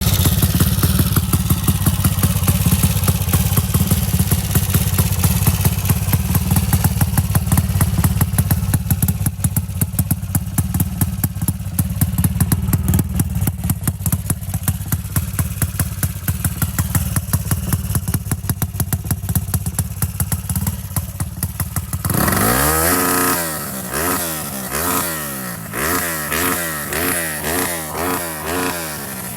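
Pushrod single-cylinder motorcycle engine, bored out to 66×62 mm and running on ethanol, idling with a deep, pulsing exhaust beat. About twenty-two seconds in it is revved in quick throttle blips, about one a second, each rising and falling in pitch.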